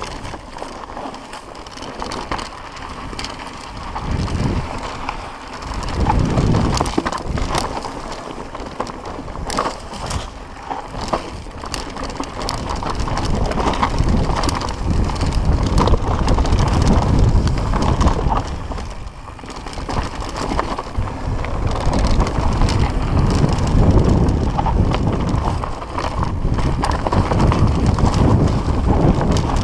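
Mountain bike ridden fast down a dirt trail, heard from a camera on the rider: wind buffets the microphone in surges over tyre noise on the dirt, with many small rattles and clicks from the bike. The wind rumble gets louder after about six seconds and stays strong.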